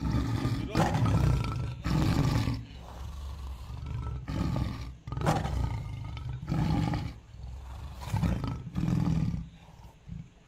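Tiger roars and snarls, a series of short, rough bursts about a second apart. They come from a sound track laid over the fake tiger, which cannot make them itself.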